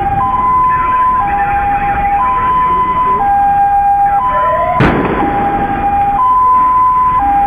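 Red Cross ambulance's two-tone siren, alternating high and low notes about once a second as the ambulance arrives. A single sharp knock sounds about two-thirds of the way through.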